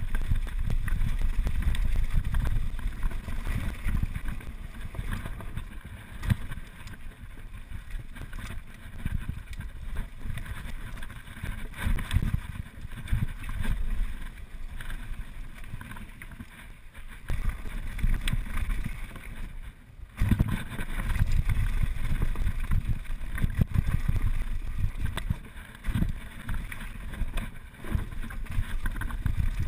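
Wind buffeting the camera microphone over the rumble and rattle of a mountain bike riding fast down a dirt trail, with frequent knocks from bumps. The noise drops briefly about twenty seconds in.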